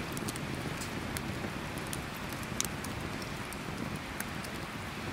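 Wood campfire crackling: a steady hiss of burning logs with scattered sharp pops, the loudest about two and a half seconds in.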